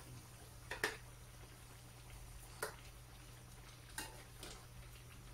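Metal ladle stirring chicken in a stainless steel frying pan, clinking against the pan four times, over a faint sizzle and a steady low hum.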